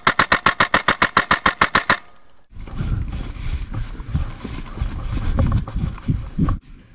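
Airsoft rifle firing on full auto, a rapid, even string of sharp pops about eight a second that stops about two seconds in. Then low rumbling and thuds of a moving player and wind on the microphone.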